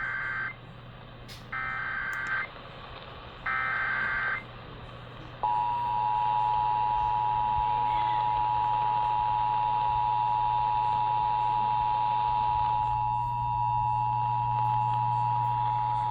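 Emergency Alert System activation: the end of one short burst of data tones and two more about two seconds apart (the SAME digital header), then the EAS two-tone attention signal, a steady, loud dual tone starting about five seconds in, over a low hum. It signals a tornado warning.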